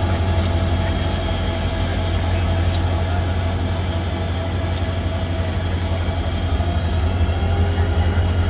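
CSX diesel locomotive running with a steady low engine rumble, a thin steady high tone over it, and a few sharp clicks.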